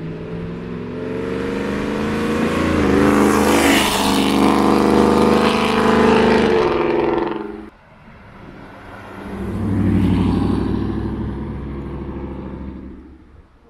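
Supercharged Ford Coyote 5.0 V8 with a GT500 blower, in a 2020 F-150 pickup, accelerating past with its pitch rising. The sound cuts off abruptly about eight seconds in. A second pass then builds and fades away.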